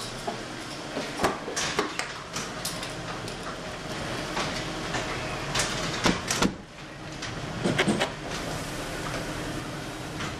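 Clicks and knocks of a car door being handled as someone climbs into the driver's seat, over a steady background hiss.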